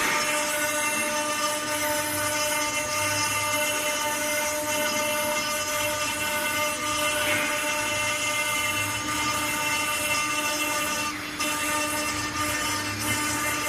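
CNC stone engraving machine's spindle running and cutting stone: a steady high whine over a gritty hiss, with a low hum that swells about every second and a half.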